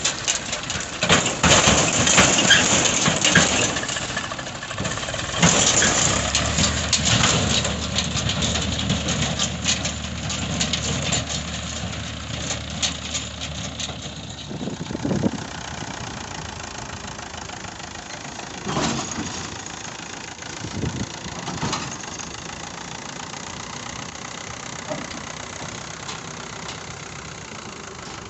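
Tractor engine running with rattling and knocking from the hitched trailer and farm machinery. About halfway through it drops to a quieter, steady machine noise with a few separate thumps.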